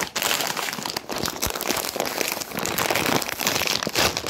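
Crinkly plastic chip bag of kettle cooked potato chips being handled and squeezed, rustling and crackling throughout.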